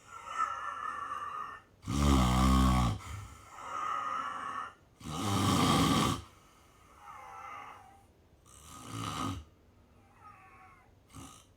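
A person snoring in their sleep: three loud snores about three and a half seconds apart, with quieter breaths between, some of them carrying a wavering whistle.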